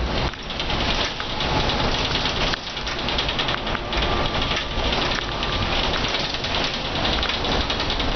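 Steady hiss of rain and tyres on a wet road, heard from inside a moving Mercedes O405N bus.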